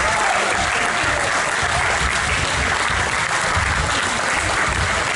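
Spectators applauding steadily, with one person clapping close by.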